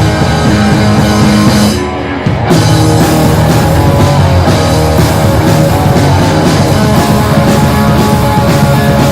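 Live rock band playing an instrumental passage: two electric guitars, bass guitar and drums. There is a brief break about two seconds in, then the full band comes back in.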